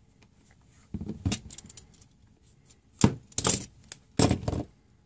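Clicks, taps and rustles of small hand tools and a power cable being handled and set down on a workbench mat, in short bursts about one second in, three seconds in and four seconds in, the sharpest click about three seconds in.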